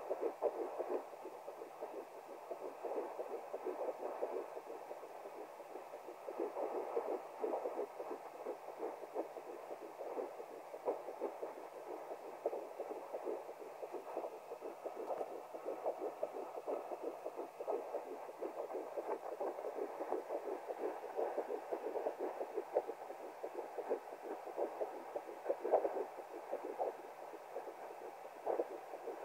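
Fetal heartbeat at ten weeks and three days of pregnancy, heard through a handheld fetal Doppler's speaker: a fast, even pulsing over a light steady hiss.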